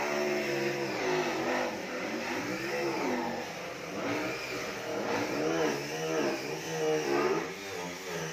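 An engine revving up and down, its pitch rising and falling several times.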